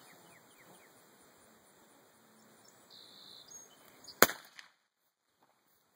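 A single shot from a Taurus Tracker 990 nine-shot .22 LR revolver about four seconds in: one sharp crack with a brief ring-out.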